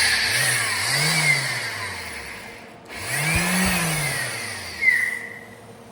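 Random-orbital (DA) sander with a 40-grit disc sanding weld seams on a steel car body panel. It runs in two stretches, about three seconds and then about two, with its pitch rising and falling as it works.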